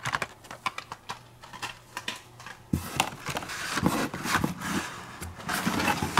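Blister-packed Hot Wheels cars on card backs being handled and pulled from a cardboard case: a run of sharp clicks and plastic crackles, then denser rustling with dull knocks of card against cardboard from about three seconds in.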